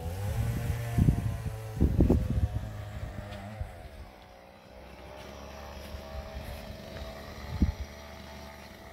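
A steady motor drone whose pitch slides down twice. Low rumbling bumps hit the microphone about one and two seconds in, and once more near the end.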